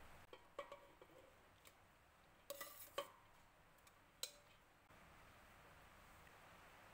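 Metal spoon clinking against a steel pot, a scattered series of light clinks with a short ring, the sharpest about three seconds in and another just after four seconds.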